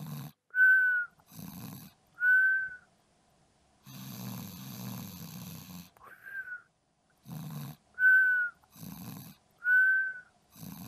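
Cartoon-style snoring: a low rasping snore alternating with a high whistle, back and forth about every second and a half, with one longer, noisier snore about four seconds in.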